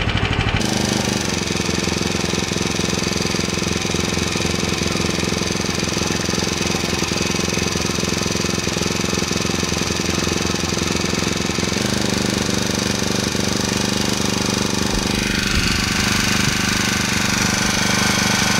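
Harbor Freight Predator 420cc single-cylinder engine running steadily on its first run after being started.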